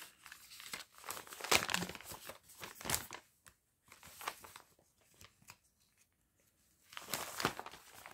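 Clear plastic packaging of a cross-stitch kit crinkling as it is handled and opened. The rustling lasts about three seconds, goes quiet for a few seconds, then returns near the end.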